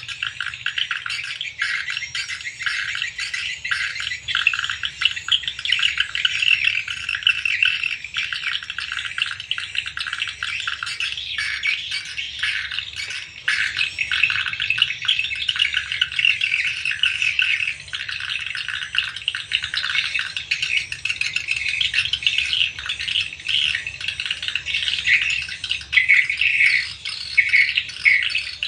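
Swiftlets twittering: a dense, unbroken chorus of many overlapping high chirps.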